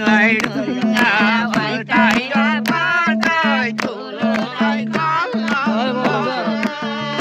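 Nepali folk song performed live: singing with a wavering, ornamented melody over quick hand-drum strokes and steady low held accompanying notes.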